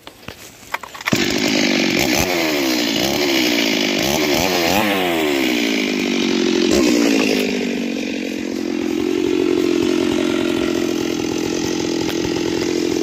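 Two-stroke Stihl chainsaw starting up about a second in, revved up and down several times, then held running at a steady high speed.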